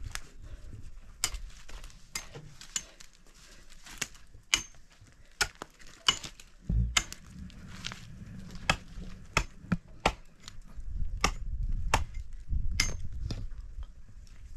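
Hatchet chopping at wood: a long series of sharp, separate strikes, roughly one every half second to a second, with a low rumble in between.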